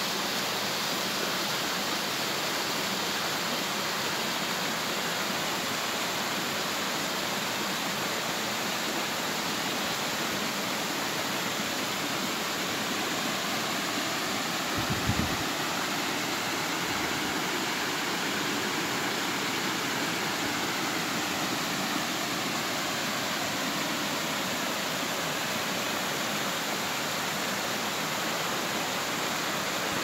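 Small woodland waterfall and creek rapids, water spilling over rock ledges in a steady, even rush. A brief low thump about halfway through.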